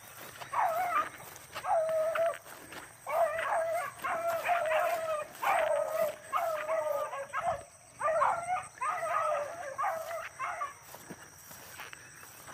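Hounds baying on a rabbit's trail, a near-continuous string of barks and drawn-out howls, with a short break about seven and a half seconds in and quieter near the end.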